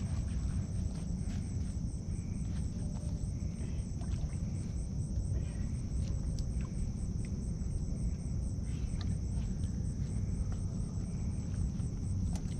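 A steady chorus of night insects, one of them pulsing in a fast, even rhythm, over a constant low rumble. A few faint clicks and rustles come and go.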